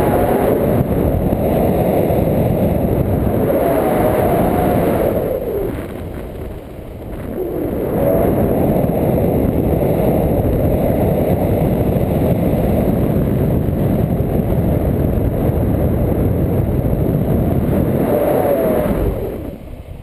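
Loud wind buffeting the action camera's microphone from the airflow of paraglider flight, easing briefly about six seconds in and again near the end.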